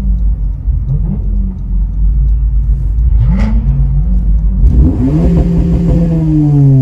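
Car engine revving in short blips, its pitch rising and falling; about five seconds in a bigger rev climbs and then winds slowly back down, with a hiss alongside.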